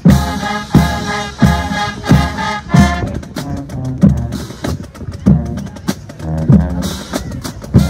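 High school marching band playing: the full band comes in sharply with brass chords over heavy bass drum strokes about every 0.7 s. After about three seconds the horns thin out while the drums keep the beat, with cymbal-like crashes near the end.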